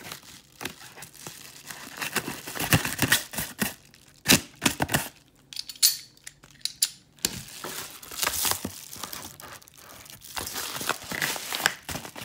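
A package being torn open and unwrapped by hand: irregular tearing, crinkling and rustling with sharp handling clicks, in bursts separated by short pauses.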